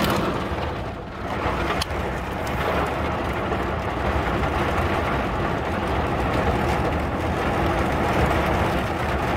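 Thunderstorm heard from inside a truck cab: heavy rain on the cab and a steady low rumble of thunder.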